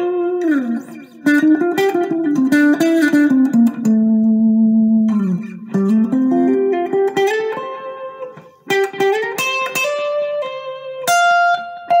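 IYV IJZ-300 semi-hollow-body electric guitar being played: a phrase of single notes and chords, with notes sliding down in pitch about half a second in and again around five seconds, then climbing back up.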